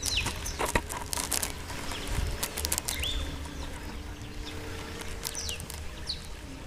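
Wind rumbling on the microphone with scattered crackles, over a faint steady hum from the electric motor of a Skyartec Cessna 182 RC plane flying overhead. A bird gives a short, steeply falling whistle about four times.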